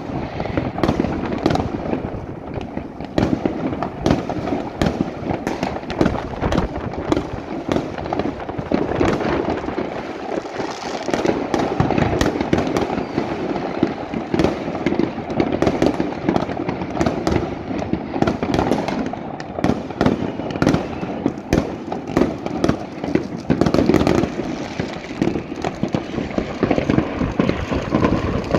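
Many fireworks rockets and firecrackers going off all over a city at once: a dense, unbroken run of overlapping bangs and cracks over a continuous background din.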